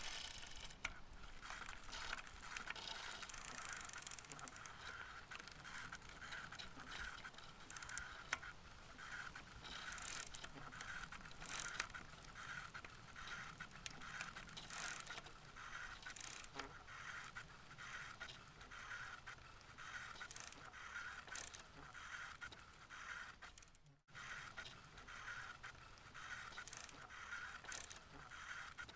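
Bicycle in motion: a steady mechanical whir from the drivetrain pulsing about twice a second, over road and wind hiss with occasional sharp clicks.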